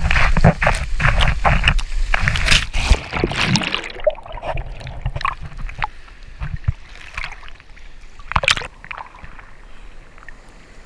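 Ocean surf water sloshing and splashing around the microphone. It is heaviest and loudest over the first four seconds, with a low rumble, then settles into quieter, scattered splashes, with one sharp splash about eight and a half seconds in.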